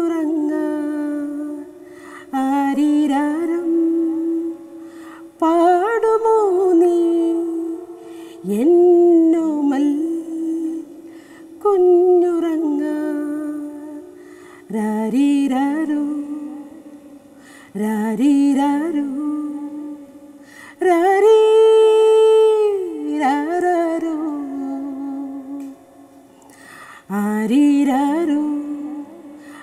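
A woman singing a Malayalam film song solo without accompaniment, in long held, ornamented phrases with short pauses for breath between them.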